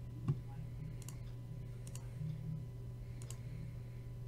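A handful of scattered computer mouse clicks, one louder about a third of a second in, over a low steady hum.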